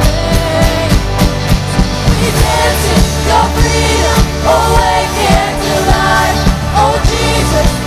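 Worship band playing a contemporary Christian song with a steady beat and sustained bass. Singing voices come in about two and a half seconds in.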